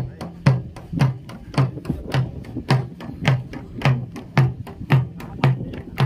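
A drum beaten in a steady, even rhythm of a little under two strokes a second. Each stroke is a sharp hit with a low thud under it.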